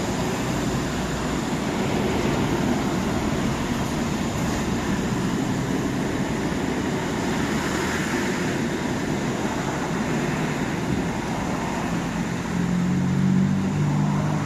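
Steady running noise of a moving vehicle, with a low hum coming in near the end.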